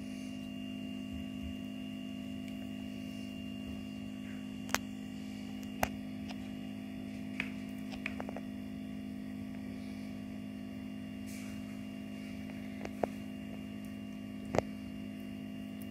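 Steady electrical hum, with a few brief, faint taps as boiled potato halves are set down in a glass baking dish.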